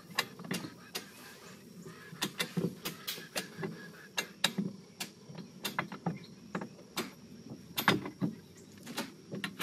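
Simplex lever jack being pumped with its bar handle to raise a building corner, its ratchet clicking with each stroke: a steady run of sharp clicks, two or three a second.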